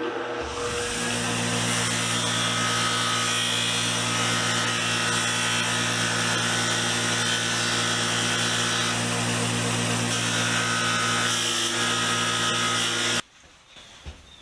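Motor-driven wire wheel running and brushing a steel T-bevel blade after rust removal: a steady motor hum under a dense, hissing scrub of the wire bristles on the metal. It starts about half a second in and stops abruptly near the end.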